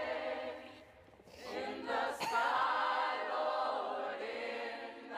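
Choral singing: several voices holding slow, sustained notes. The voices fade briefly about a second in and swell back, with a short sharp sound about two seconds in.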